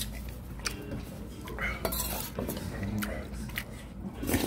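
Metal ladle and spoon clinking and scraping against a wok and a stainless-steel bowl as stew is served out, with several separate sharp clinks.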